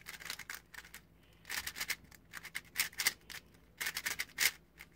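A GAN 356 Air SM magnetic 3x3 speedcube being turned quickly by hand, its plastic layers clacking in about four quick runs of clicks.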